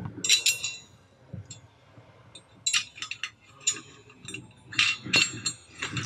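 Steel bracket and bolt hardware clinking against the steel frame of a bag rack as it is fitted by hand: several short metallic clinks, each ringing briefly.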